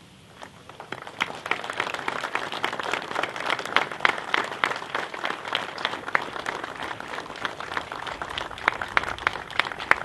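Audience applauding: the clapping starts about a second in, builds quickly and then holds steady.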